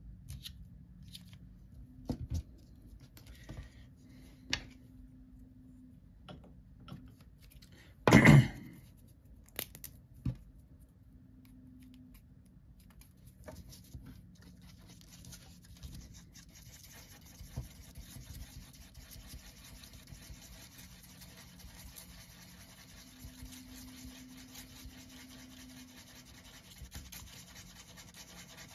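A small stick scraping across paper as it stirs two-part JB Weld epoxy, a continuous scratching through the second half. Before that, scattered light taps and clicks of the tubes being handled, with one loud thump about eight seconds in.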